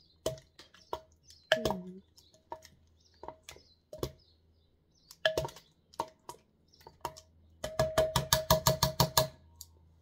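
A kitchen utensil knocking and clinking against the slow cooker's crock while working the food inside it: scattered single knocks that each ring briefly. Near the end comes a quick run of knocks, about seven a second, lasting under two seconds.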